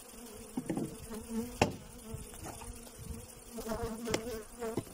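Honeybees from an opened hive buzzing in a steady hum, with individual bees sweeping close past the microphone. A single sharp knock sounds about a second and a half in.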